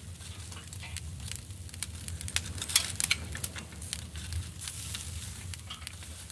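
Charcoal grill crackling and sizzling: glowing coals give irregular sharp pops, loudest around the middle, over a low steady rumble.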